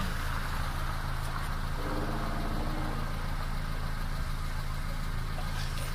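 Off-road 4x4 vehicle's engine idling steadily with a low rumble.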